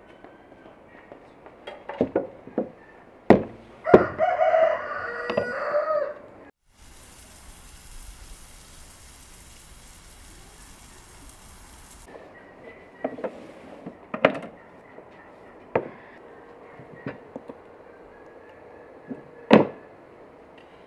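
A rooster crows, a call of about two and a half seconds, among a few sharp knocks. Then meat sizzles on a hot stone griddle for about five seconds, followed by scattered sharp taps of a knife on a wooden cutting board.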